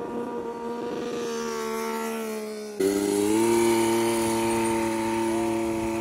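LiquidPiston rotary X-engine on a stand-up scooter, running steadily. Its pitch rises a little under halfway through, then holds.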